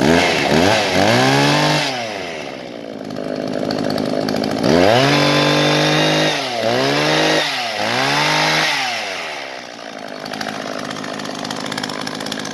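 Shindaiwa 300S two-stroke chainsaw idling after a fresh start, with its throttle blipped: one rev at the start, then one long and two quick revs in a row from about five seconds in, dropping back each time to a steady idle. Its running is very smooth.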